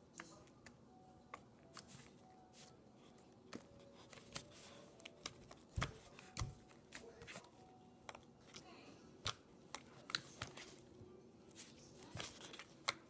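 Cloud slime being kneaded and stretched by hand, giving an irregular run of small crackles, clicks and pops, with a couple of duller thumps about six seconds in.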